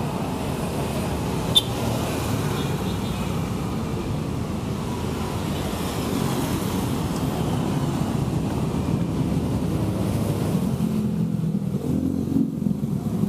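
Steady road traffic noise, a continuous low rumble of passing vehicles, with one short sharp click about one and a half seconds in.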